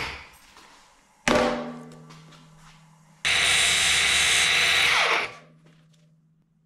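Cordless angle grinder with a tungsten welding electrode held against its spinning disc. A sudden loud burst about a second in fades to a low steady motor hum. A loud, steady grinding hiss then lasts about two seconds and dies away.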